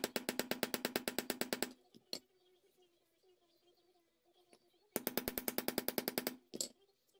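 Small hammer tapping rapidly on a steel pin, about ten light blows a second, peening it over on a straight razor's wooden scales with the razor resting on a steel hammer head as an anvil. The blows ring slightly. A run of taps stops a little under two seconds in, and a single tap follows. A second run starts about five seconds in and lasts just over a second, ending with one more tap.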